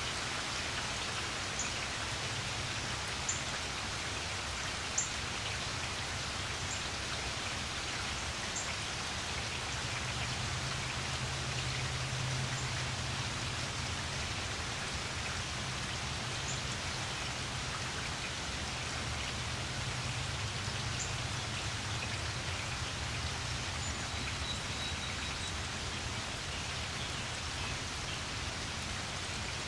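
Steady rain falling, with single drips ticking now and then, most of them in the first nine seconds, over a low steady hum.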